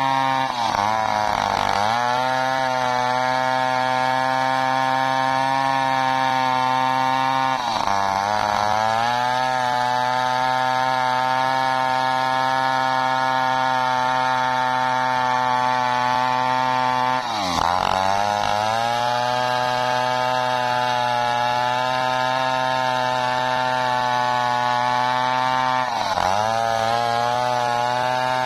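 Stihl two-stroke chainsaw running at full throttle while ripping a dry waru (sea hibiscus) log lengthwise with a blunt chain. The engine note holds steady, then four times, about every eight seconds, sags under the load and climbs back.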